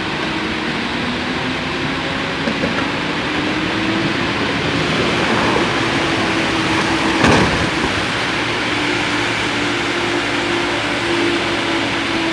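Boat engine running steadily under a rush of wind and water noise, with one brief sharp knock about seven seconds in.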